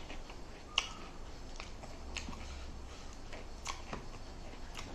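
Close-miked eating sounds: sharp mouth clicks and crisp bites, a few spaced irregularly about a second apart, the loudest near the start.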